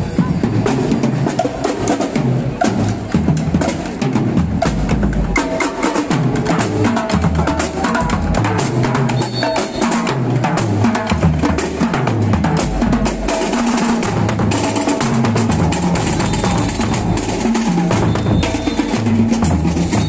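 Marching band playing on the move: bass drums and snare drums beating a steady, busy rhythm under brass and saxophones.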